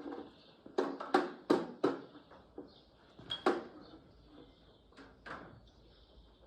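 Sharp knocks from hand work on the tractor's parts: four quick strikes about a third of a second apart, then a single knock about halfway and two lighter ones near the end.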